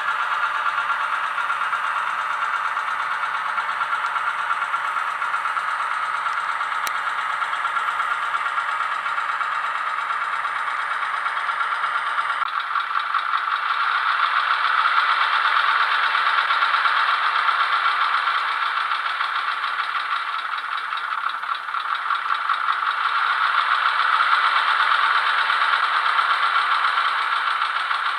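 Sound decoder in an H0 model of an NS series 200/300 diesel shunter, playing its diesel engine running sound through the model's small loudspeaker. The sound is thin with no bass and has a steady knocking beat. About twelve seconds in its tone changes and it grows a little louder.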